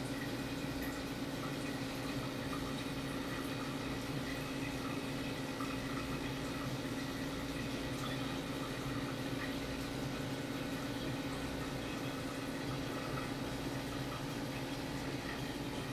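Aquarium filter running: a steady hum with a constant watery hiss of circulating water.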